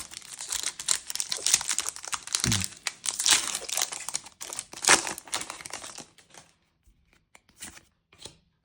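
A Lorcana booster pack's plastic-foil wrapper being torn open and crinkled for about six seconds, then a few faint ticks.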